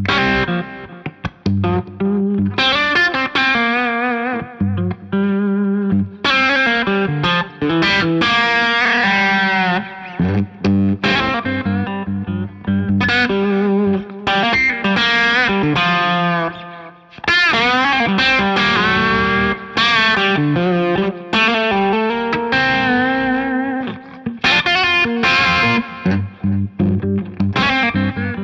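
James Tyler Studio Elite HD electric guitar played through distortion, a lead line with string bends and vibrato over repeated low notes.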